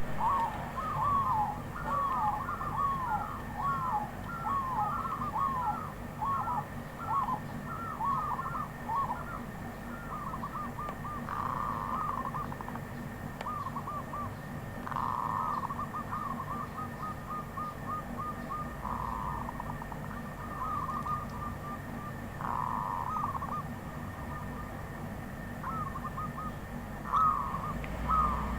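Wild zebra dove cooing: a long series of short, soft, pitched coo notes, repeated quickly at first and then in phrases broken by several brief rapid trills.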